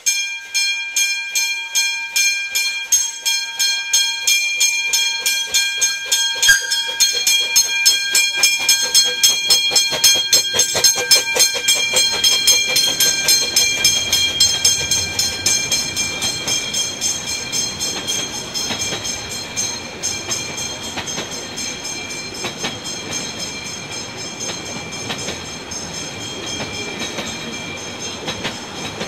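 381 mm gauge Krauss Liliput miniature steam locomotive pulling away with a train of open coaches. A steady whistle blast begins at the start and fades away over the first dozen seconds, over quick, regular beats and the clatter of wheels on the track as the coaches pass.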